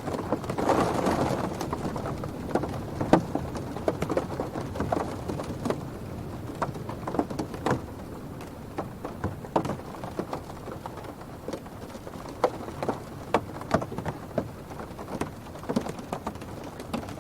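Rain falling on a car's roof and windows, heard from inside the car, with wind rushing against the body. Single heavy drops tap irregularly over the steady hiss, and a louder gust swells in the first two seconds before the sound eases a little.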